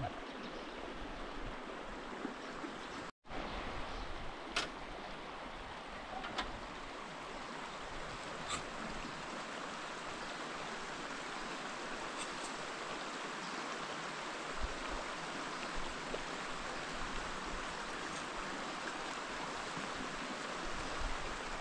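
A steady rushing noise with a few faint ticks; it cuts out for an instant about three seconds in.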